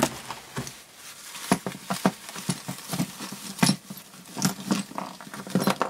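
Plastic bubble wrap crinkling in the hands as a small toy figure is unwrapped: irregular rustles and sharp little clicks.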